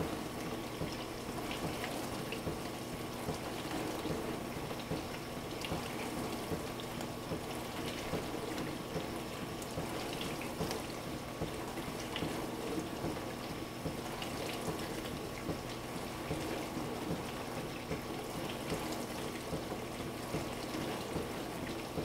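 Frigidaire dishwasher running its wash motor, water spraying and swishing inside the closed tub over a steady motor hum. This is the wash-heat step of the diagnostic test cycle, with the wash motor and heating element both switched on.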